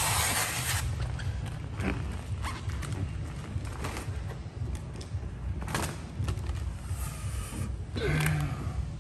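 A hand spray bottle spritzing once, a short hiss in the first second, then faint handling clicks and rubs and a brief squeak near the end over a steady low hum. The spritz is the kind used to wet paint protection film with slip or tack solution during installation.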